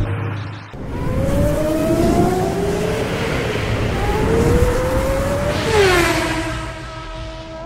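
Race car engine accelerating, its pitch rising twice as if through a gear change, then dropping sharply as it sweeps past with a whoosh and fades out.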